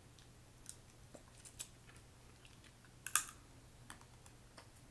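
Scattered small clicks and crackles of snow crab shell and meat being picked apart with the fingers and eaten, with one sharper crackle about three seconds in.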